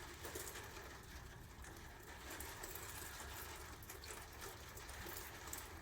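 Faint, steady hiss of rain falling outside.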